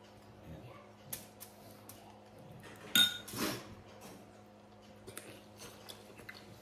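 A spoon clinks sharply against a chutney bowl about three seconds in, with a brief ringing tone, among a few quieter clicks and rustles of dishes and eating at the table.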